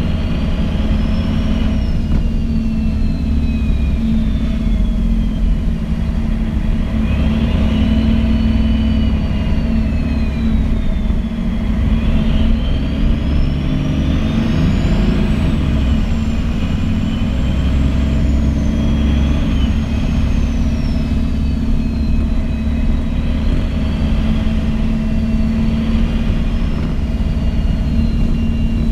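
MAN NG 313 articulated bus's diesel engine and Voith automatic gearbox running under way, heard from inside the passenger area. A high drivetrain whine rises and falls in pitch over the engine, climbing to its highest about halfway through.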